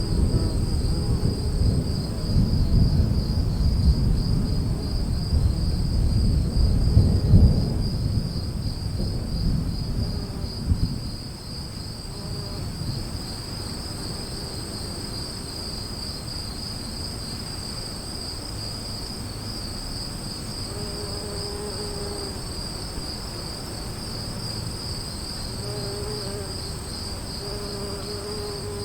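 Thunder rumbling during an afternoon storm, swelling to its loudest about seven seconds in and dying away about eleven seconds in, over insects chirring steadily on two high, even tones that carry on after the thunder has faded.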